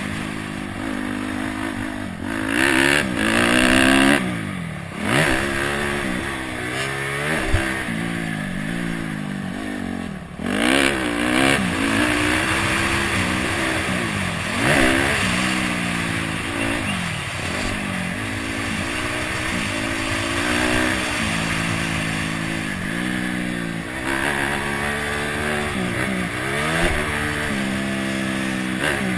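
Honda CRF250X dirt bike's single-cylinder four-stroke engine riding hard, the revs climbing and falling again and again with the throttle, with a few sharp drop-offs in pitch.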